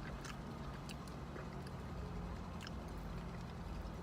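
Quiet chewing with a few faint mouth clicks while eating, over a steady low hum inside a car.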